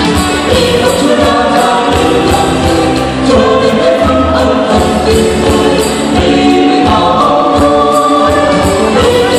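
A mixed choir singing a Christmas song to instrumental accompaniment with a steady beat.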